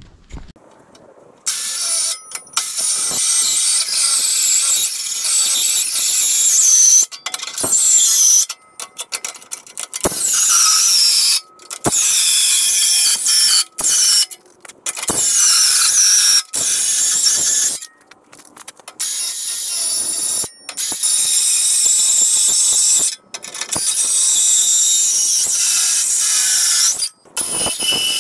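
Power tool working the steel base plate of a wrecker boom: a high metallic squeal in repeated runs of a second or a few seconds, each stopping abruptly.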